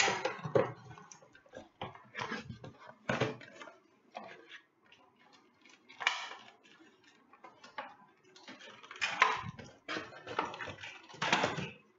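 Cardboard packaging being handled by hand: short irregular scrapes, rustles and light knocks as the box is opened and a boxed plastic toy in its cardboard tray is moved about.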